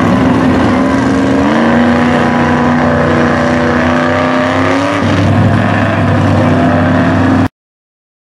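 Chevy Blazer mega truck's engine running hard under load as it churns through a deep mud pit, the pitch stepping up about a second and a half in and dropping about five seconds in. The sound cuts off abruptly near the end.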